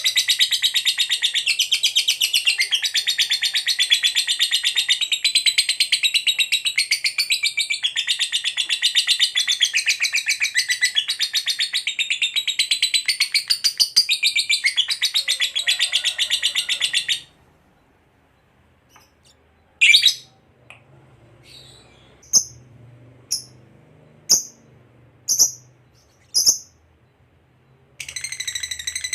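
Lovebird singing its long, rapid, unbroken chattering song (ngekek) for about seventeen seconds, which stops abruptly. A few sharp single chirps about a second apart follow, then the fast chatter starts again near the end.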